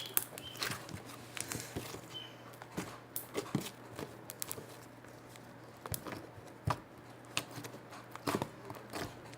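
Slime being squeezed and stretched by hand: scattered small sticky clicks and pops at irregular intervals.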